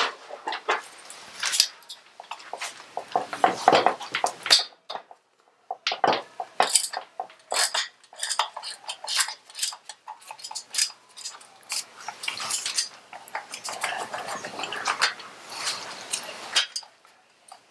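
Irregular metallic clinks, knocks and rattles of hand tools and metal parts as the top motor mount is worked loose from a Harley-Davidson engine, with a brief lull about five seconds in.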